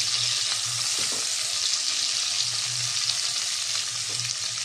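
Cashews and raisins frying on a low flame in a non-stick kadai, giving a steady high sizzle while a silicone spatula stirs them.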